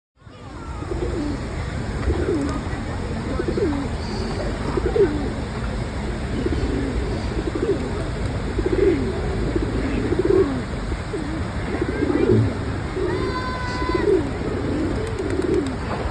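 Pigeons cooing, short low coos repeating about once a second.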